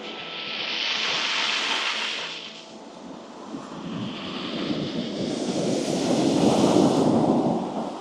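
Black Sea waves washing up onto the beach in two surges: a hissing wash early on, then a louder, fuller wave breaking and running up the shore through the second half.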